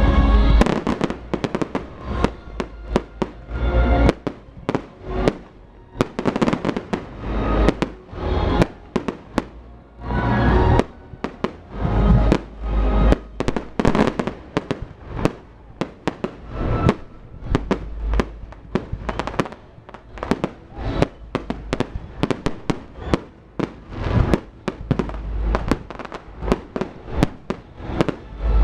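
Fireworks going off in rapid, irregular succession: many sharp bangs and cracks with deeper booms among them, over music.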